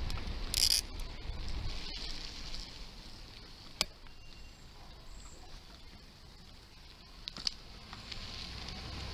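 Wind rushing over the microphone and road noise while riding a Giant Chinook bicycle on asphalt, with a short hiss near the start and two sharp clicks, about four and about seven and a half seconds in.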